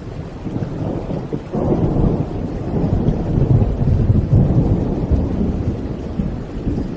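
Rolling thunder over steady rain: a deep rumble swells about a second and a half in, is loudest through the middle, then eases a little.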